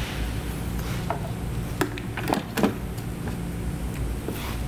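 Hard plastic parts knocking and clicking as the upper timing belt cover is set back in place on a Volvo S60 engine, five or six short knocks with the loudest about two and a half seconds in, over a steady low hum.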